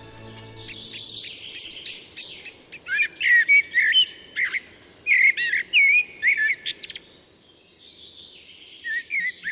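Common blackbird singing: loud, fluty warbled phrases mixed with high thin twittering notes, easing off for a moment near the end before more chirps.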